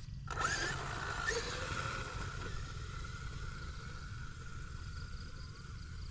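Traxxas Unlimited Desert Racer RC truck's brushless electric motor kicking in with a sudden burst of noise, then holding a steady high whine that slowly fades, over a steady low rumble.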